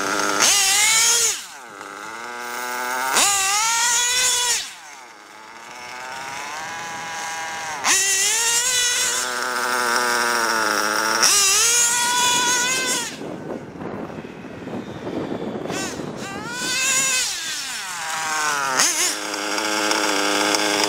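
Small nitro two-stroke glow engine of an OFNA Violator 1/8 buggy, modified OS .30 VG, revving hard in repeated bursts. The pitch climbs on the throttle and drops off, and the sound falls quieter a few times between runs.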